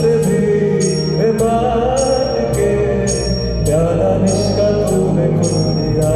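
Live band music: a male voice sings a melody into a microphone over keyboard and electric bass, with a steady beat of crisp, high strikes about twice a second.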